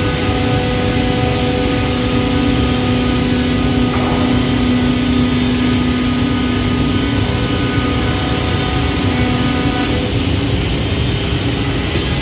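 CNC scroll saw running steadily: a continuous machine drone with a steady hum, and a faint click near the end.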